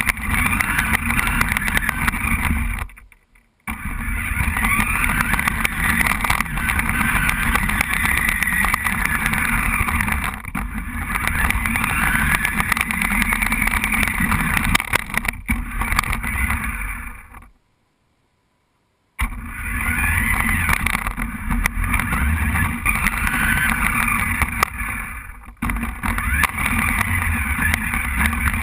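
Remote-controlled toy car's electric motor and gears whining loudly and close up, the pitch wavering up and down as it speeds up and slows. The sound drops out briefly a few times and goes silent once for about a second and a half in the middle.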